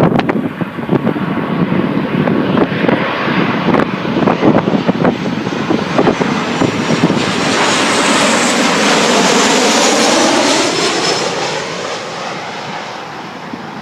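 An airliner passes low overhead on approach to land. Its engine noise is loudest past the middle, sweeping in a hollow, phasing way as it goes over, then fading near the end. Strong wind gusts buffet the microphone, mostly in the first half.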